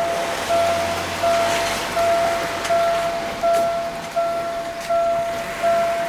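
Railway level-crossing warning bell dinging steadily, one even tone about every three-quarters of a second, over background hiss. The crossing is malfunctioning: the barrier failed to rise after the train passed, and the alarm keeps sounding.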